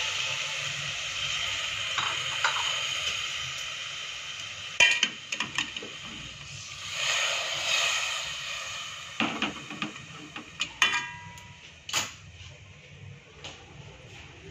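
Chicken curry sizzling in an aluminium pot while a ladle stirs and scrapes through it. The hiss fades slowly, broken by sharp metal clinks of ladle and pot, a few about five seconds in and several more between about nine and twelve seconds.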